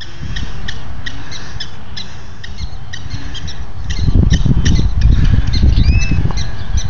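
Many short, sharp chirping calls repeating rapidly from a prairie dog colony or birds, with a couple of arching whistled glides about six seconds in. Beneath them, low wind rumble on the microphone grows louder about four seconds in.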